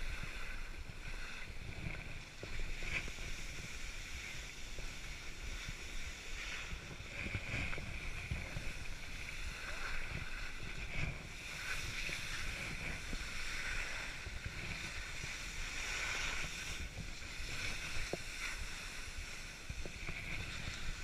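Skis sliding and scraping over snow, a steady hiss, with wind noise rumbling on the microphone of a body-worn action camera.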